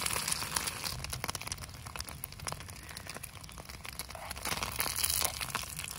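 An egg frying in oil in a small metal pan over a wood fire: a steady sizzle with dense crackling.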